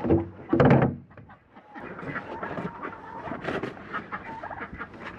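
A loud clatter in the first second as a plastic feed bin is opened, then domestic chickens clucking in a steady run of short calls.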